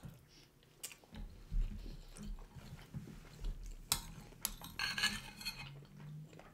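Metal spoons clinking and scraping against glass bowls, with a few sharp clinks. Quieter chewing runs between them as two people eat.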